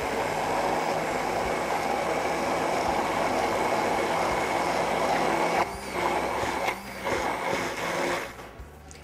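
Hand-held immersion blender motor running steadily, its blade puréeing roasted eggplant with olive oil into a thick cream in a tall beaker. It cuts out briefly twice in the second half and stops shortly before the end.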